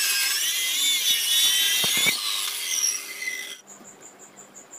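Handheld electric circular saw ripping a wooden board lengthwise, its high motor whine dipping and rising in pitch as the load on the blade changes. It cuts off suddenly about three and a half seconds in.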